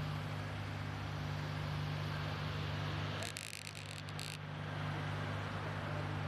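Steady low rumble of an idling vehicle engine with street noise. It breaks briefly a little past halfway with a few clicks.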